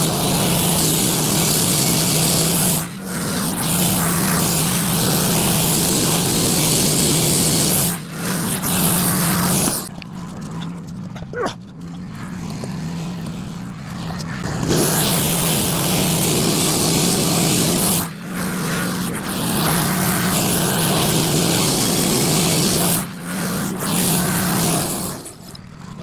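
Wood-Mizer LT15 Go bandsaw mill running, its band blade cutting through a frozen pine log with a steady low engine hum underneath. The cutting noise drops off briefly several times, and for a few seconds about ten seconds in, as passes end.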